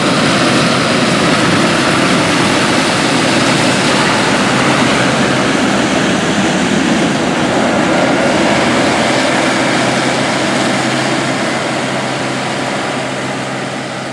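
A 1977 International 815 combine running steadily while harvesting corn: its IH V345 gasoline V8 engine and threshing machinery give a loud, even drone. The drone fades gradually near the end.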